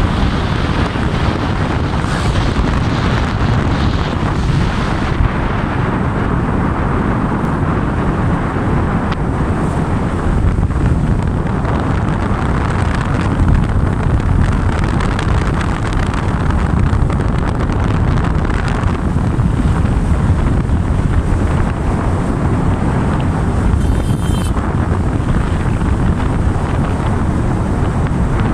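Steady wind buffeting the microphone on a moving motorcycle, mixed with the bike's engine and road noise.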